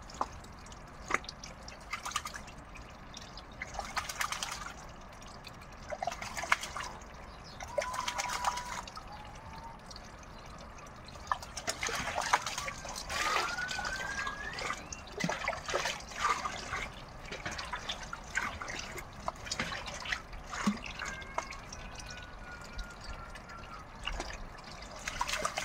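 Water trickling steadily into a metal basin, with splashes and knocks as a plastic cup is dipped and scooped through the water. A few faint, short whistle-like calls come in the middle, one of them rising.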